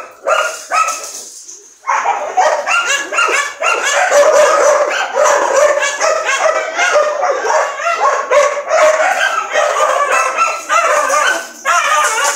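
A pack of dogs barking and yipping over one another almost without a break, with a brief lull about a second in.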